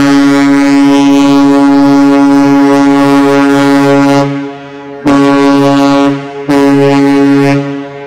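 Great Lakes freighter American Spirit's ship horn blowing one long blast and two short blasts, the master's salute. The blasts are loud and keep one steady pitch; the long one lasts about four seconds and the two short ones follow about a second apart.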